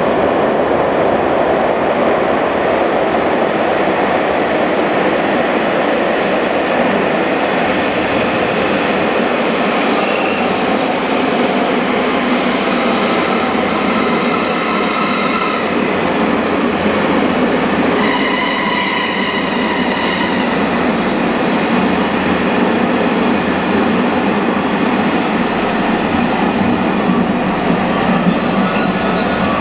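A JR West 283 series "Ocean Arrow" limited express train running into an underground station platform. There is a steady, echoing rumble of wheels and motors. High squealing and whining tones come and go about a third and two-thirds of the way through as it slows in.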